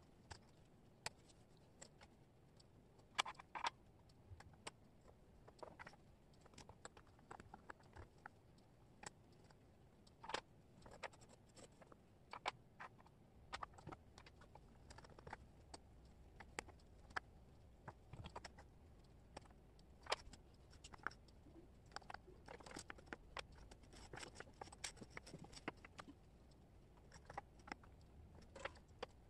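Wooden jigsaw puzzle pieces clicking and tapping irregularly as hands pick them up, slide them and set them down on a cork board.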